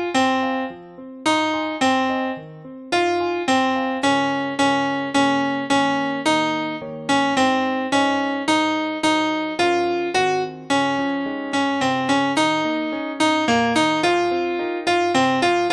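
Electric piano playing a simple, even-paced melody, about two struck notes a second, each decaying, with occasional lower notes underneath.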